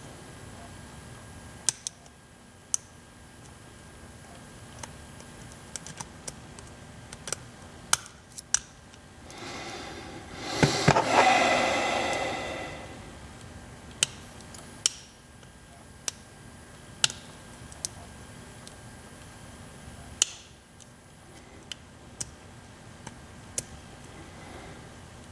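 Lock picking on a Pacific Lock 100A five-pin padlock: sharp, scattered clicks of the pick and tension tool against the lock, with a louder scraping rattle lasting about three seconds around ten seconds in. The picker believes the lock has a collapsed spring or two, which makes it hard to pick.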